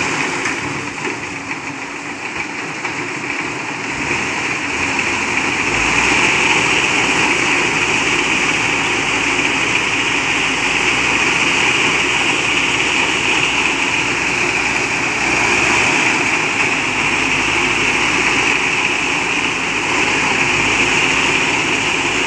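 Diesel engines of a heavy wrecker and a crane truck running steadily while they winch an overturned cargo truck upright. The noise grows louder about five seconds in, then holds steady.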